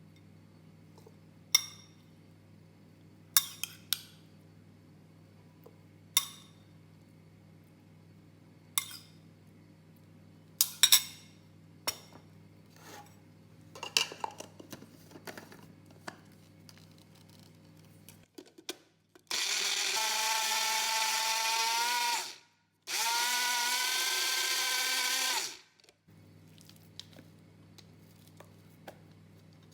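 A series of sharp clicks and knocks, then a kitchen blender's motor running loudly in two runs of about three seconds each with a short stop between, blending the prawn meat and seasonings into a paste.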